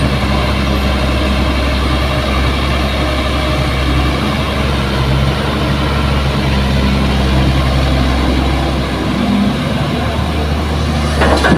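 Heavy diesel engines running steadily at low revs: a dump truck idling while it waits to be loaded, with a Kobelco hydraulic excavator running behind it.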